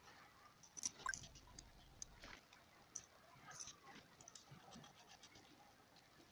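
Faint, scattered clicks and taps of small socket-head screws being handled and set into the holes of a clutch housing, with a hex key starting to work on them near the end.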